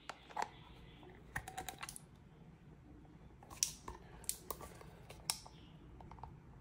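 Small metal clicks and taps from fingers working the ring tab of a pull-tab wet cat food can, lifting the tab before it is pulled open: a scattered run of short sharp clicks, a quick cluster of them about a second and a half in and several more past the middle.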